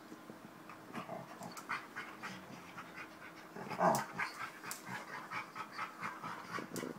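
Two black Labradors play-fighting: quick breathing and mouthing sounds from about a second in, with one short loud dog sound about four seconds in.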